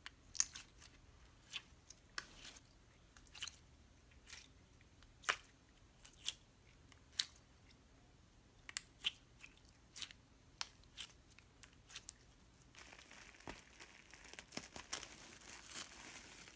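Glossy red slime squeezed and kneaded in the hands, making sticky clicks and pops at irregular intervals. About three-quarters through, a bubbly orange slime pulled up in strands from a bowl makes a denser, steadier crackling.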